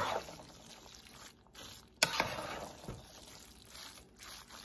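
A spoon stirring a moist rice-and-ground-meat dressing in a pot. It knocks against the pot at the start and again about two seconds in, with wet scraping and squishing between.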